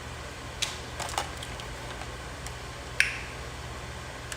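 Snow crab leg shells being cracked and snapped apart by hand: a few sharp cracks, the loudest about three seconds in.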